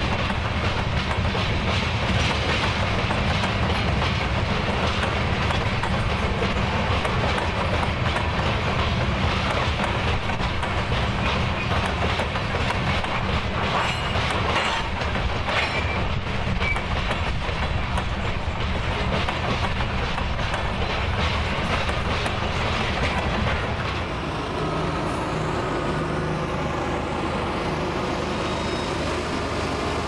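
Freight train rolling steadily, its wheels clicking over the rail joints. About 24 seconds in the sound gets a little quieter and changes character.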